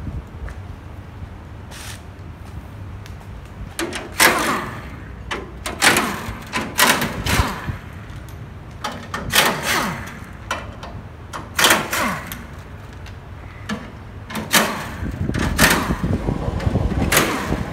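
Pneumatic impact wrench undoing the bolts of a steel motorcycle shipping crate, firing in about a dozen short bursts from about four seconds in, with the tool winding down after some of them.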